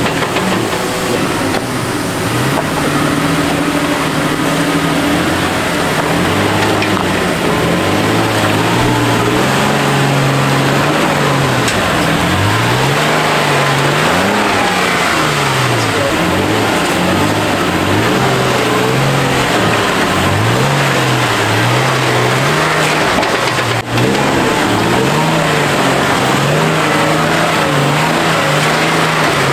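Toyota Tacoma pickup's engine revving up and down under load as the truck crawls through deep ruts on a dirt trail, the pitch rising and falling every second or two with each blip of the throttle.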